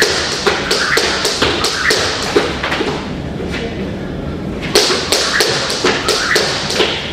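Quick runs of sharp taps and thumps, about three or four a second, in two stretches of some three seconds each with a lull of about two seconds between.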